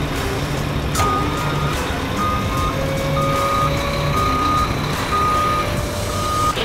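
Reversing beeper of a toy turbojet fire truck: a click about a second in, then a short high beep about once a second, six in all, over a low rumble.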